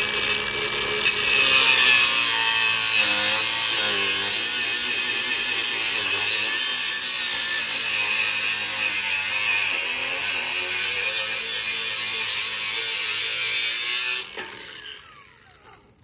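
Cordless angle grinder grinding the steel shaft end of a condenser fan motor, throwing sparks. It whines unloaded for about a second, grinds steadily, then shuts off about two seconds before the end and winds down.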